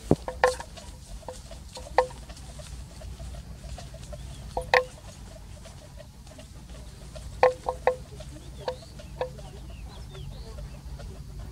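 Short clucks of fowl, some single and some in quick bunches of two or three, over a steady low hum, with faint bird chirps.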